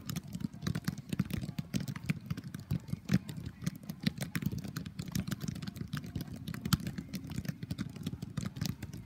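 Several footballs being juggled at once: many irregular, overlapping thuds of balls on feet, knees and thighs, over a low steady rumble.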